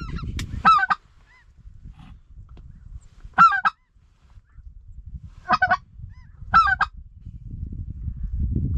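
Snow goose honking: four short bursts of two or three loud, high-pitched notes, over a low rumble that grows louder near the end.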